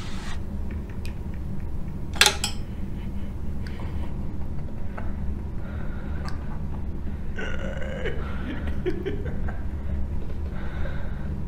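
Horror short film soundtrack: a steady low drone, a sharp click about two seconds in, and brief throaty, burp-like sounds around eight seconds in.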